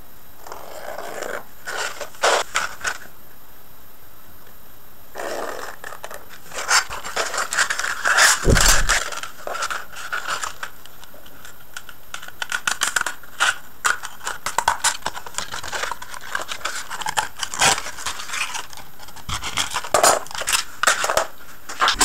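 Scissors cutting through a strip of coarse 60-grit sandpaper: a long run of short scraping snips. Near the start, a few scratchy strokes of a marker drawn along a ruler on the sandpaper's paper backing.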